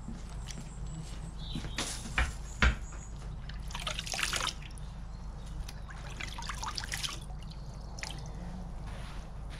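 Liquid fabric dye trickling and dripping as a sponge is worked in a bowl of dye, with two sharp knocks about two seconds in and a splashing spell a little after.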